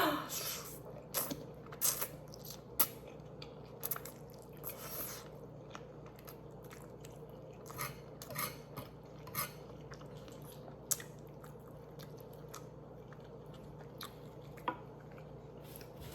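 A person chewing and biting food close to the microphone, with irregular crunches and wet mouth clicks that come thick at first and thin out over the second half.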